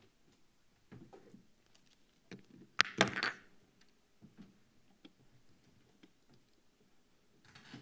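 Knocks and clicks of things being handled on a table, with a sharp cluster of clicks about three seconds in the loudest, and a few softer knocks before and after.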